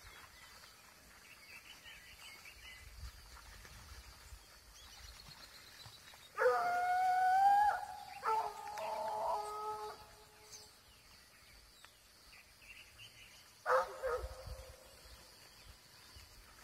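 American hunting hounds baying on a wild boar hunt: a long drawn-out howl about six seconds in, a few more overlapping calls right after it, and one short call near the end.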